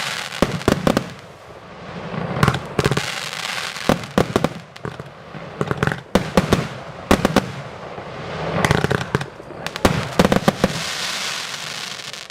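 A 232-shot fireworks cake firing: groups of sharp bangs come in quick succession every second or two, with crackling and hiss between the reports.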